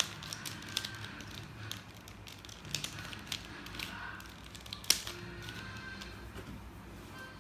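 Mirror cube being twisted and scrambled by hand: irregular plastic clicks and clacks as its layers turn, with music underneath.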